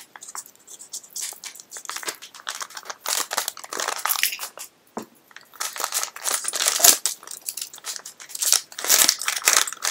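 Crinkling and rustling of a Disney pin blind bag's wrapping being torn open and handled, in irregular crackly bursts with short pauses.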